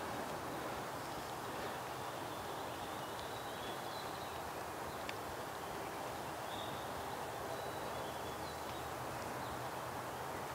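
Steady outdoor background noise with faint, short, high songbird chirps every few seconds, and one sharp click about five seconds in.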